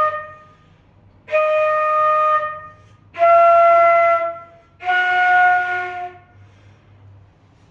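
A woodwind instrument sounding the note D in separate held tones, about a second each: the end of one tone, then three more, switching between the low and the high D in register practice.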